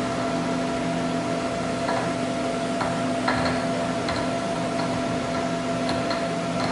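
Precision Matthews PM-935TV milling machine running with a steady hum, with a few faint light ticks.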